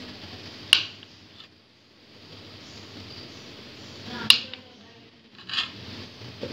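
A long kitchen knife slicing through a sponge cake loaf, its blade knocking sharply on the cutting board as it finishes a slice, twice about three and a half seconds apart, with a softer knock shortly before the end.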